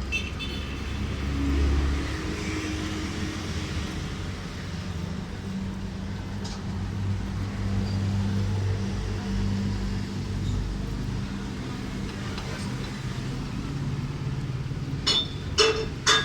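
A steady low mechanical rumble with low tones that come and go, then a run of sharp metallic clinks near the end.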